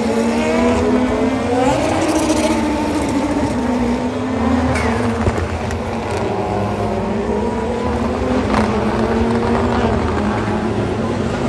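A pack of Super GT GT500 race cars, turbocharged four-cylinder engines, running through a corner one after another. Several engine notes overlap, rising and falling in pitch as each car passes.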